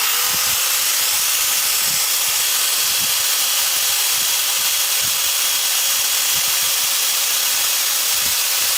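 Makita 9553B 710 W angle grinder running at full speed with no load: a steady whine over an even hiss, measured at about 103 decibels.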